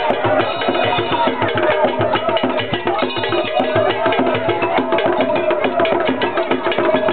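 Live drumming and percussion in a fast, dense beat with sharp clacking strikes, and voices over it.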